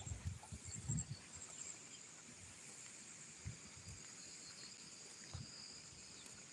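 Faint, high insect chirring with a light pulsing. A few low thumps in about the first second.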